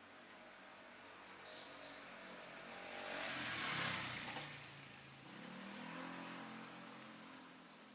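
A motor vehicle passing by on the street. Its tyre and engine noise swells to a peak about four seconds in, then fades with the engine pitch dropping as it goes by. A second, fainter engine rises and fades shortly after.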